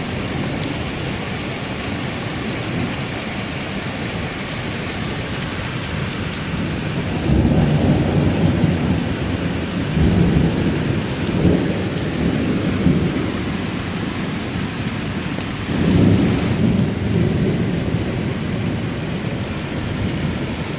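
Steady rain falling during a thunderstorm, with thunder rumbling twice: a long roll about a third of the way in, and a shorter one later.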